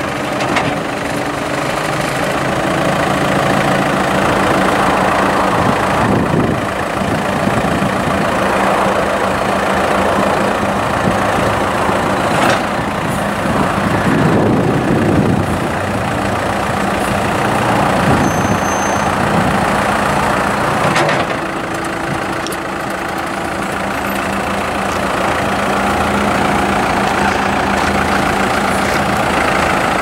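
New Holland 675E backhoe loader's diesel engine running, its revs rising and falling several times as the front loader bucket is raised and lowered.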